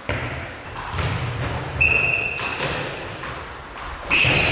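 Indoor football on a sports hall floor: the ball and feet thud, and sharp high squeaks from shoes on the hall floor come about two seconds in and again, loudest, near the end.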